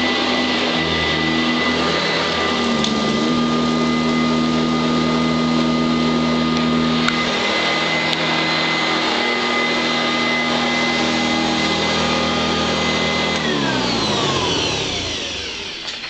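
Sanitaire SC886 commercial upright vacuum running with a steady motor whine, then switched off about three-quarters of the way through, its motor winding down in pitch.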